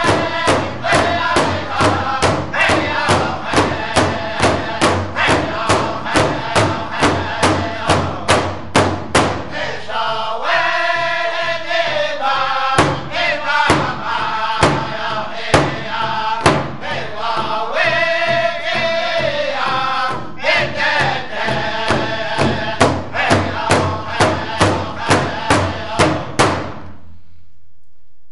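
Powwow drum group: several drummers strike a large rawhide-headed drum together in a steady beat, about two to three strokes a second, while they sing in unison in high, strong voices. The drumming and singing stop together about 26 seconds in, at the end of the song.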